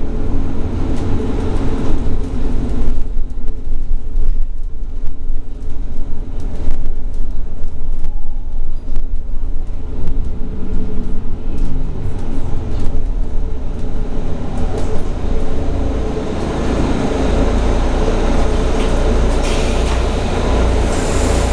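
Interior ride noise aboard a Mercedes-Benz Citaro G C2 articulated bus under way: a steady low rumble from the drivetrain and road with scattered rattles and clicks. The noise grows louder over the last few seconds.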